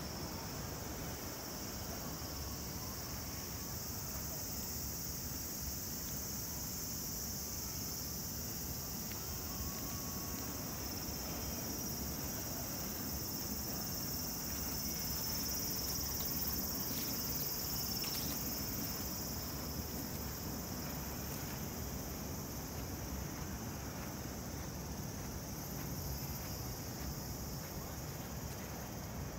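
Steady, high-pitched chorus of cicadas droning without a break, with a low, even background rumble underneath.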